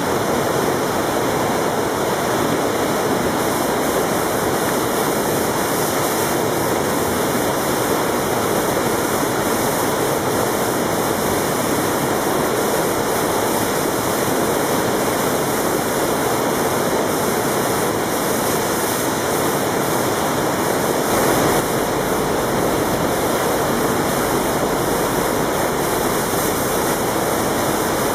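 Steady rush of whitewater from the Eisbach river's standing wave, churning where the river pours over the step. A deeper rumble joins it about three-quarters of the way through.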